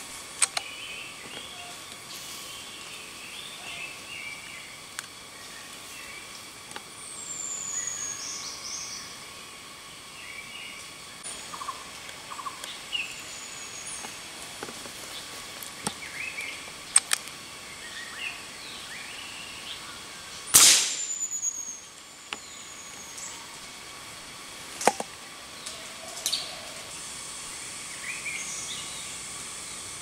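Forest birds calling, with several high, quickly falling whistles and scattered chirps over a steady outdoor background, plus a few sharp clicks. About two-thirds of the way through comes a single loud shot with a short echoing tail, the loudest sound.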